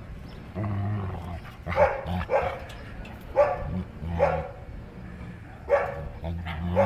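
Golden retriever play-growling in low rumbles, with about six short, sharp barks or yips spread through the growling.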